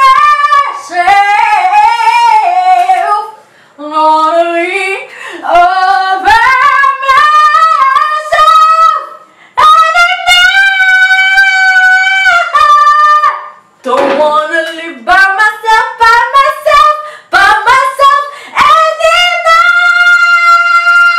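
A woman singing a high melody in phrases, with several long held notes and short breaks between them.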